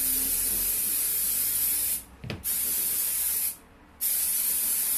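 Aerosol can of nano waterproofing spray hissing onto a boot in three bursts: a long one of about two seconds, then two shorter ones, with brief pauses between.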